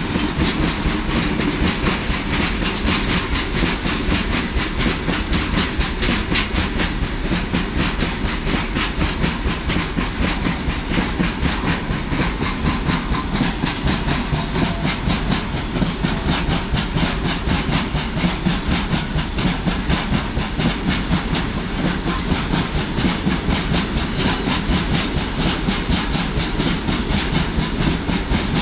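Open-top freight wagons of an Indian goods train rolling steadily past, their steel wheels clattering over the rail joints in a fast, even rhythm over a continuous hiss of wheel and rail noise.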